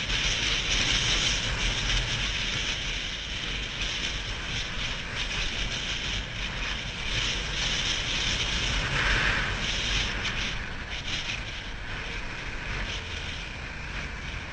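Wind rushing over the microphone of a camera on a moving motorcycle, with a low rumble of engine and road beneath, steady apart from a brief louder gust about nine seconds in.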